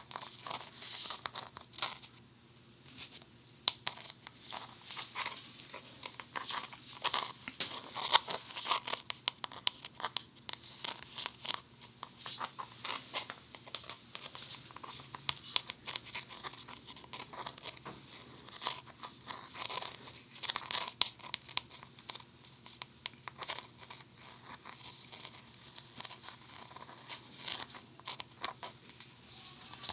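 White Funny Foam, sticky foam-bead clay, being pressed and worked against the ear of a binaural dummy-head microphone: a dense, uneven run of fine crackling and ticking pops as the little beads stick and come away from the glue.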